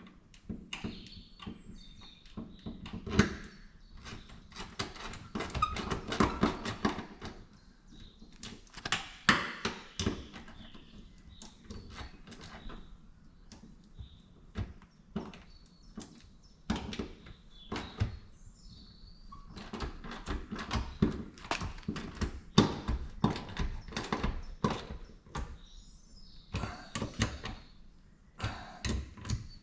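Hand tools and metal parts clicking, knocking and clanking at irregular intervals as a car's shifter assembly is worked into place and bolted down.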